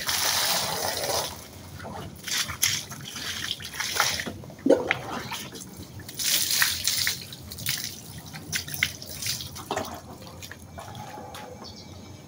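Water poured from a plastic dipper splashing onto a clear plastic mat on a paved floor, in several bursts with knocks and drips between them. Around the middle the mat is lifted and water streams off it.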